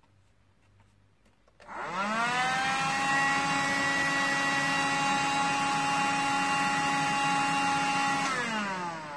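Rowenta AC4461 Extenso Cyclonic handheld vacuum cleaner switched on: its motor spins up with a rising whine, runs steadily for about six and a half seconds, then is switched off and winds down with a falling whine.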